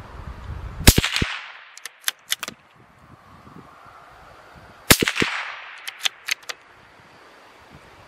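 CZ 457 .22LR bolt-action rifle firing twice, about four seconds apart, on high-velocity Winchester Super X rounds. Each shot is a sharp crack that trails off in a short echo. Between shots come a few light clicks of the bolt being worked.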